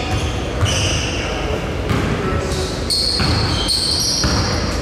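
Basketball game on an indoor court: the ball bouncing, and sneakers giving short high-pitched squeaks that start and stop abruptly, echoing in a large hall.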